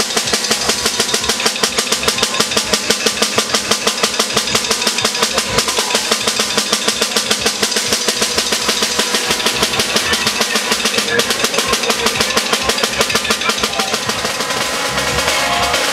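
Snare drum played in a fast, even stream of stick strokes, the drummer checking the drum at a soundcheck.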